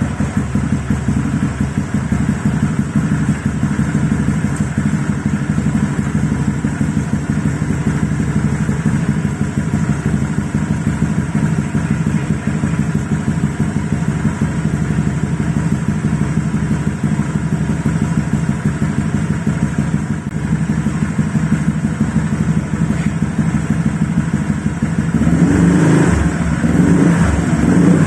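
Motorcycle engine idling steadily through an ABF Racing Hexa big-volume, full-baffle aftermarket silencer with a mellow exhaust note. Near the end it is given a few light throttle blips.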